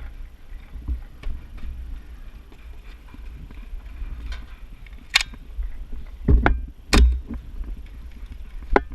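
Low rumble and handling noise of a body-worn camera on a moving player, broken by a few sharp cracks, the loudest about five and seven seconds in and another near the end.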